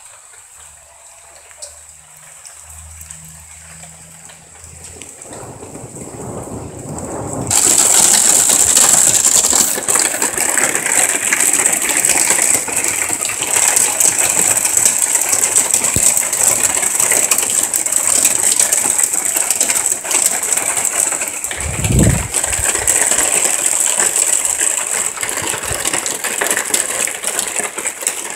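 Heavy thunderstorm rain, faint at first, building and then jumping suddenly to a loud, steady downpour about seven seconds in. There is a brief low thud about two-thirds of the way through.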